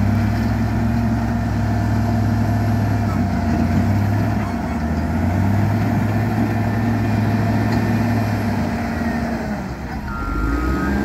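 Caterpillar 140M motor grader's diesel engine running steadily under load while grading. The engine note dips briefly about ten seconds in, and the grader's reversing alarm starts beeping right after.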